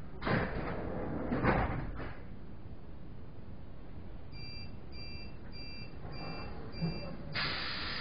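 Five short electronic beeps, about two a second, from the door-closing warning of a modernised EN57 electric train, followed near the end by a sudden loud rush of noise as the sliding doors close. Two dull thuds come in the first two seconds.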